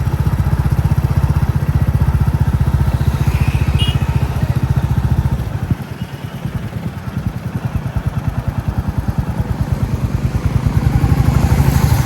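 Royal Enfield Classic 350's single-cylinder engine and exhaust thumping steadily while riding. The throttle eases off about halfway through, then the engine picks up again near the end.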